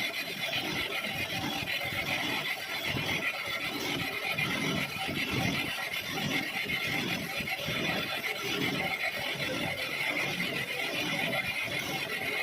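Metal lathe cutting a thread in a cast iron nut, the cutting tool giving a steady high squeal over the rumble of the machine.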